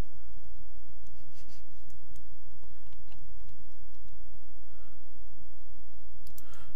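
A few scattered clicks of computer keyboard keys being pressed, over a steady low hum.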